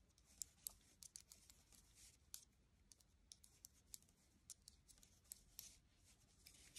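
Faint, irregular clicking and light scraping of metal knitting needles tapping together as stitches are worked, several small clicks a second.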